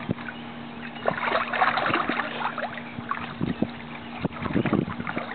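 Water splashing and sloshing in a small inflatable kiddie pool as a child moves about in it, with a steady low hum underneath.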